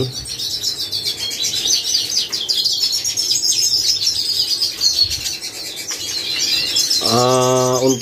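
Many caged canaries, finches and siskins chirping and singing at once, dense and overlapping throughout. A short, low, steady hum comes in about seven seconds in.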